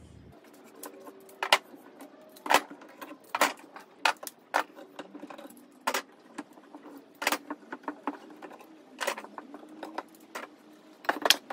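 F-clamps and metal bars being taken off a glued pine frame: a string of about a dozen irregular, sharp metallic clinks and knocks of metal against wood.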